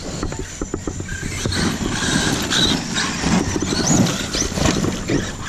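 Electric Traxxas RC monster truck driving over a gravel pile: tyres crunching and scattering stones, with the motor's whine gliding up and down.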